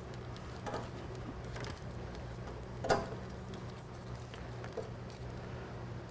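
A few light clicks and taps from wiring and parts being handled on the motorcycle, the loudest about three seconds in, over a steady low hum.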